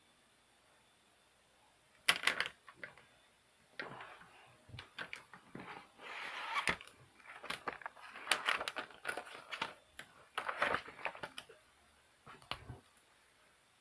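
Pencil-case contents being handled: a run of small clicks, knocks and rustling scrapes, irregular and close, that stops near the end.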